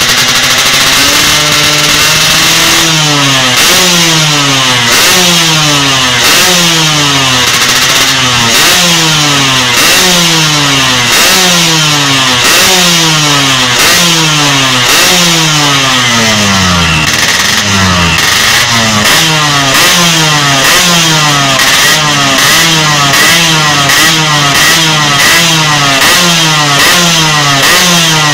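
Yamaha RX-King's two-stroke single-cylinder engine being revved on the stand: the throttle is blipped over and over, about once a second, each rev rising sharply and falling back to idle. The revving tests how quickly and cleanly the engine picks up on the throttle.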